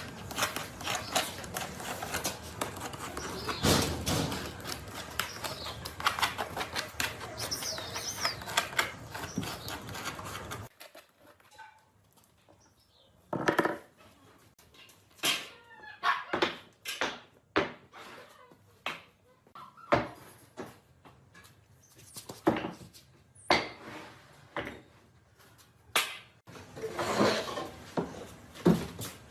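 Dense clatter of clicks and knocks with background noise, then an abrupt change about ten seconds in to a quieter stretch of separate, irregular sharp knocks and taps.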